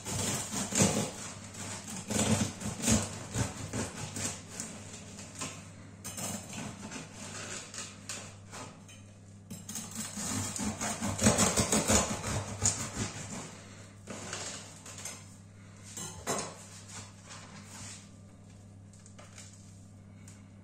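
Bread knife sawing back and forth through the crisp crust of a sourdough loaf, rasping and crackling in runs of quick strokes with short pauses. The strokes thin out as the cut finishes, with one sharp knock on the cutting board near the end.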